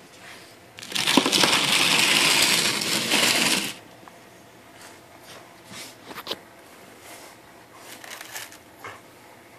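Loud crunching rustle of cloth handled right against the phone's microphone, lasting about three seconds, as a towel is tucked under the dog's head; after it, only a few faint clicks and rustles.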